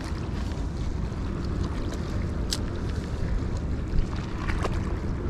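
Wind rumbling on the microphone over water lapping against the rocky shoreline, with a few small clicks and one sharper click about two and a half seconds in.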